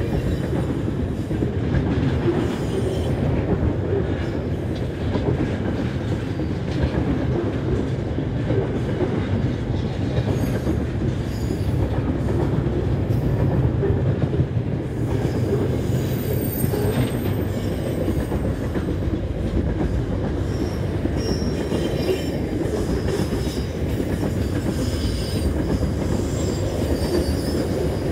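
Freight train wagons rolling past with a steady rumble of steel wheels on rail. Faint high-pitched wheel squeal comes and goes in the second half.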